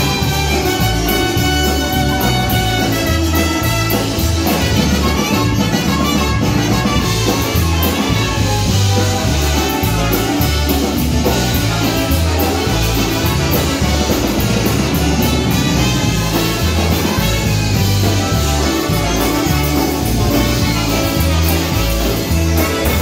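Live polka band playing an instrumental passage: trumpet, saxophone and two concertinas carry the tune over electric bass and drum kit. The bass alternates notes on a steady two-beat pulse.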